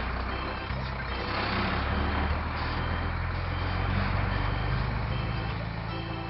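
Cartoon sound effect of a heavy construction vehicle running: a steady low engine rumble under an even noisy rush.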